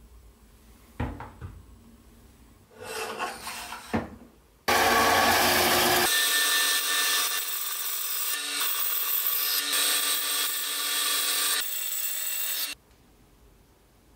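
Band saw cutting through a brass tube: a steady, loud run with several high steady tones, from about five seconds in until it stops abruptly near the end. Before it, a few knocks and some rustling.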